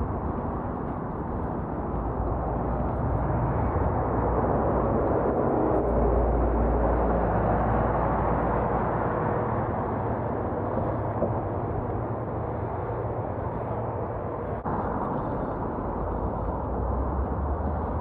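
Steady street-traffic and wind noise heard from a moving bicycle, a little louder for a few seconds near the middle.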